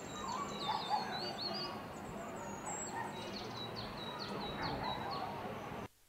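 Wild birds calling in forest canopy. There are two runs of quick, high chirping notes, each note dropping in pitch, the second run starting about three seconds in, over steady outdoor background noise. The sound cuts off abruptly just before the end.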